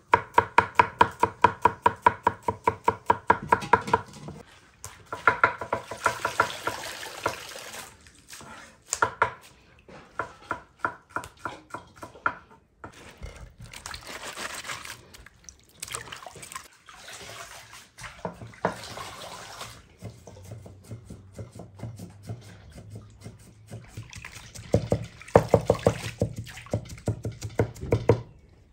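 Knife chopping shallots on a wooden cutting board in quick strokes, about four a second. Then hands swishing and rinsing fresh spring onions and herbs in a metal basin of water, with another run of sharp knocks near the end.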